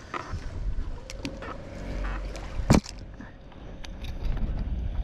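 Wind rumbling on the microphone aboard a bass boat, with a few light clicks and one sharp knock just before three seconds in.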